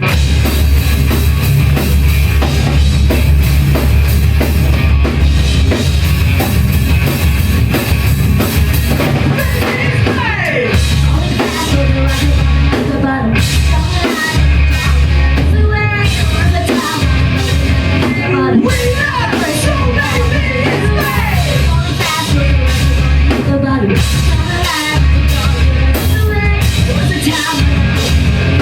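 Live rock band playing loudly: drum kit, distorted guitars and bass, with a vocal or lead guitar line coming in about ten seconds in.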